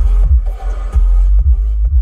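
Music played loud through the Bronco's newly installed aftermarket subwoofers, heard inside the cabin, dominated by deep bass hits that slide down in pitch about twice a second.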